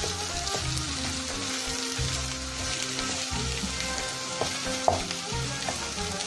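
Mashed-potato filling with onion and tomato paste frying in oil in a pot: a steady sizzle as it is stirred, with one sharp tap about five seconds in.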